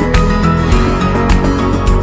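Stock music track with a steady beat, with a hit about every 0.6 seconds.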